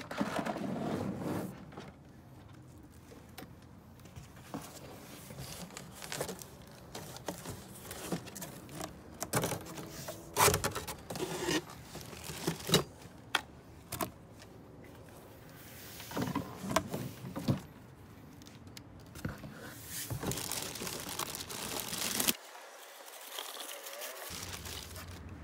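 Unpacking sounds: plastic wrapping crinkling and cardboard rustling, broken by sharp knocks and clicks as parts are handled and set down. There is a longer spell of loud crinkling about twenty seconds in.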